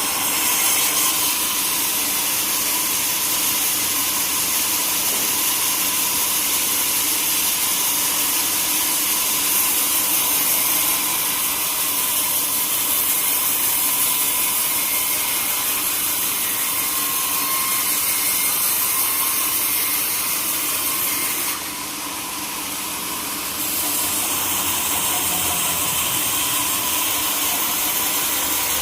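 Sawmill saw running steadily as it cuts through a log, a continuous high hiss with a faint steady whine. The level dips briefly a little over 20 seconds in.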